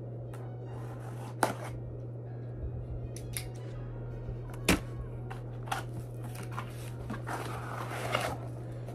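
Desk handling noises: a few sharp clicks and knocks, the loudest a little before the middle, then cardboard rustling and scraping near the end as a corrugated shipping box is handled. A steady low hum runs underneath.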